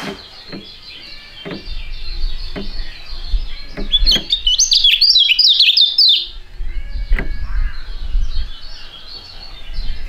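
Kecial (white-eye) singing a fast, chattering song of high chirps and trills, busiest and loudest around the middle, over a low rumble.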